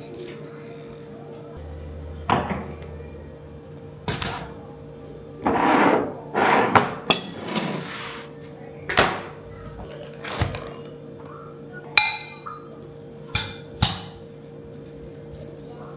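Kitchen handling on a wooden table: a string of separate knocks and clatters as a knife, plastic cutting board and glass mixing bowl are picked up and set down, with a couple of longer rustling scrapes about six to seven and a half seconds in. Near the end a metal spoon knocks against the glass bowl of minced meat. A faint steady hum runs underneath.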